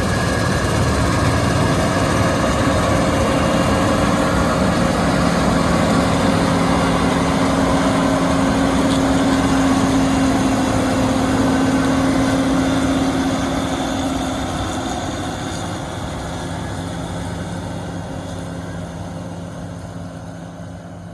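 John Deere 9510 combine running steadily while harvesting wheat: a deep, even engine drone with a steady hum from the machine. It fades out gradually over the second half.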